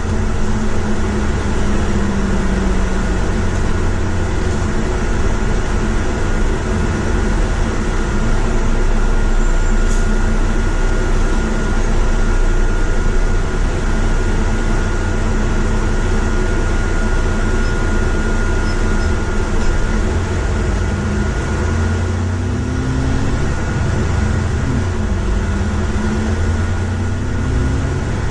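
A double-decker bus's engine running and its road noise, heard from inside on the upper deck, with a faint steady high whine for most of the stretch. Near the end the engine note rises a few times as the bus accelerates.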